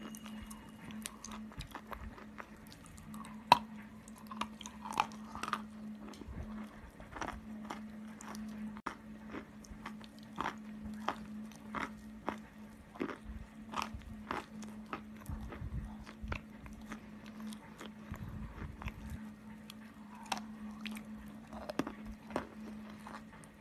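Close-miked crunching of chalk coated in clay paste: many small crisp crackles and snaps throughout, with one sharp, louder snap about three and a half seconds in. A steady low hum runs underneath.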